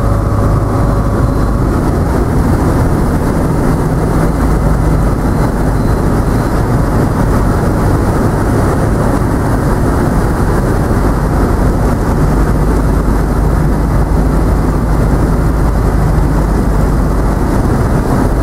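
ICP Savannah ultralight's engine and propeller running steadily, heard from inside the cockpit with wind noise, as the aircraft comes in on approach to a grass field.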